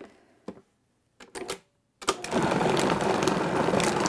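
A few light plastic clicks, then about halfway through a food processor motor starts and runs steadily, grinding a thick paste of ground pork and ice into a fine meatball mix.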